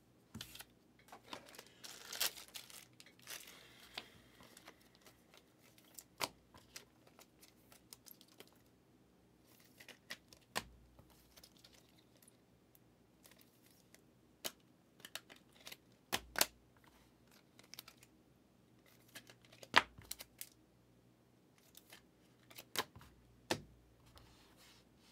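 Trading cards in hard plastic holders being set down on a display stand: scattered sharp plastic clicks and taps, with a crinkle of plastic for a few seconds near the start.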